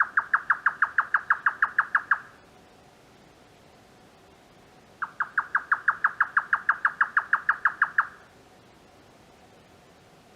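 Grey nightjar giving its "kyo-kyo-kyo" call, known as the cucumber-chopping call: two rapid runs of sharp, evenly spaced notes, about eight a second. The first run stops about two seconds in; the second starts around five seconds and lasts about three seconds.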